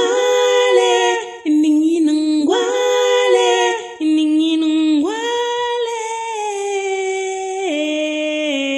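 A woman's voice singing four phrases of a song, the last a long note held for about three seconds that then steps down to a lower note.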